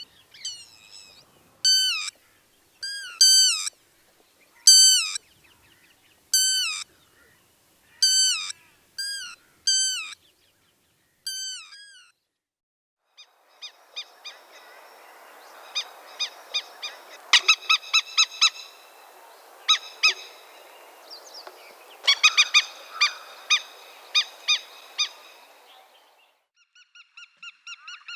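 A bird gives a loud call that slides down in pitch, about ten times over roughly twelve seconds. After a short gap, a flock of birds calls in quick, clustered bursts over a steady background noise.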